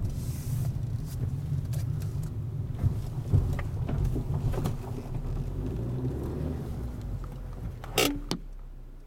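Car cabin sound of a car moving slowly: a steady low engine and road rumble with scattered clicks and knocks as it rolls over rough ground. About 8 seconds in there is a brief, loud rattle, after which the rumble is lower.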